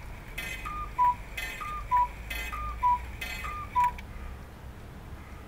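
Swiss Koo cuckoo clock calling four times. Each call is a higher note followed by a lower one, and a short hiss comes just before each.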